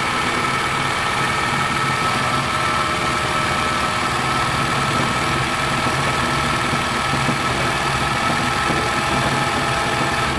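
1972 Elna Supermatic SU 62C sewing machine running steadily at speed, its motor and needle mechanism stitching a close, full-width zigzag satin stitch through fabric. The machine stops suddenly right at the end.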